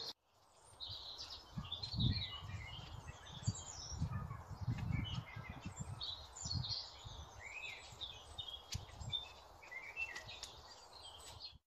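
Small birds singing and chirping, with several dull low thumps about two seconds in and again around the middle.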